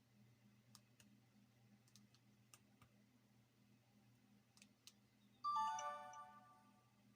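Sony Ericsson Z800i mobile phone: a few faint keypad clicks as its menu is stepped through, then about five and a half seconds in one of its built-in message sound effects plays through the phone's speaker, a quick run of chiming notes stepping down in pitch that rings out and fades.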